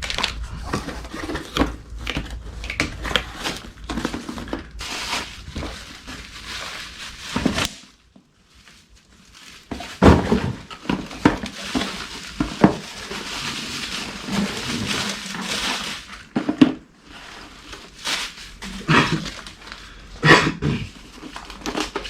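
Handling noise as engine parts and their packaging are moved about: irregular rustling and crinkling with clinks and thunks. It drops to near quiet for about two seconds, some eight seconds in.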